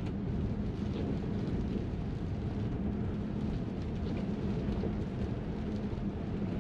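Cabin noise inside a Tesla rolling slowly on wet pavement in the rain: a steady low rumble with a faint steady hum, and scattered light ticks of raindrops on the glass roof.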